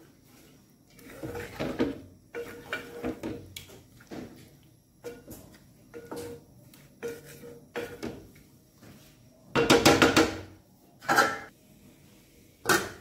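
Wooden spatula stirring chicken in gravy and scraping around an aluminium pot, the pot ringing briefly with some strokes. Three louder scrapes and knocks against the pot come in the last few seconds.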